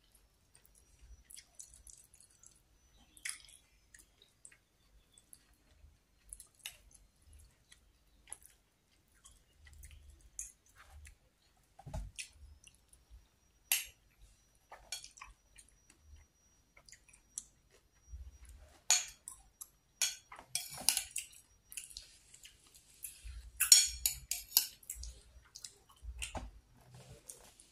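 Close-up eating sounds: a person chewing batagor, fried fish dumplings and tofu in peanut sauce, with scattered light clicks of a fork on the plate. The sounds are sparse for the first two-thirds and come thicker and louder near the end.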